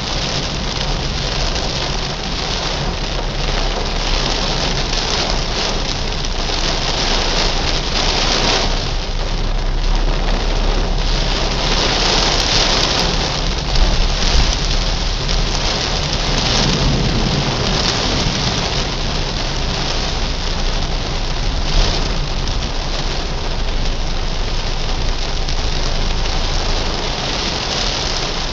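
Heavy rain pattering steadily on a car's roof and windshield, heard from inside the cabin, with a steady low rumble of the moving car underneath.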